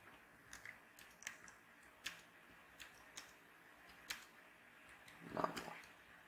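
Faint computer-keyboard keystrokes, a dozen or so irregular clicks as code is typed, with one louder, duller knock about five and a half seconds in.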